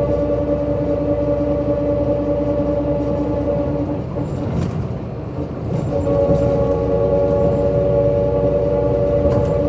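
MAN SL202 CNG city bus running on the road, heard from on board: a steady engine and drivetrain drone. About four seconds in the drone drops away for a moment with a few light clicks and rattles, then comes back about six seconds in.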